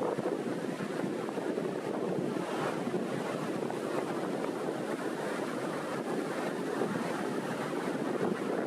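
Small sea waves rolling and breaking on the shore in a steady rush of surf, with wind buffeting the microphone.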